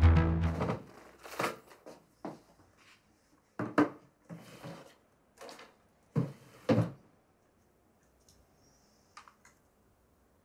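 A film score fades out in the first second, then a run of separate knocks and clatters of objects moved about in an open wooden bedside-table drawer. The last of these, near the end, is faint.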